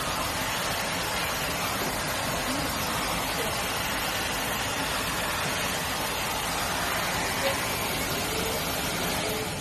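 Steady rushing noise with voices underneath.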